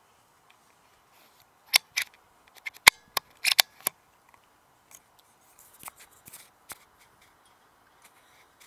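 Air rifle being handled, most likely cocked and reloaded after a shot: a quick run of sharp clicks and clacks, loudest about three seconds in, then a few fainter clicks.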